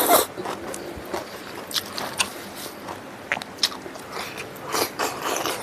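Close-miked eating: a person chewing a hand-fed mouthful of rice and smoked pork, with irregular short wet clicks. It is loudest just at the start as the food goes into the mouth.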